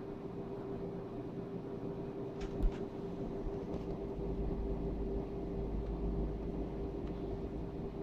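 Steady low hum and faint hiss of room noise. About two and a half seconds in there is a small knock, then a low rumble for several seconds as the handheld camera is moved.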